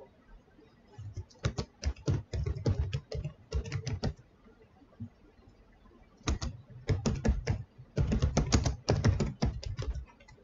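Typing on a computer keyboard: quick runs of keystroke clicks, in two bursts with a pause of about two seconds between them.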